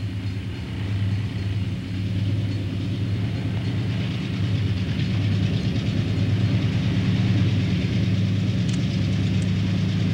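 Santa Fe diesel locomotives pulling a freight train under heavy load, their engines giving a steady low drone that grows louder as the train approaches.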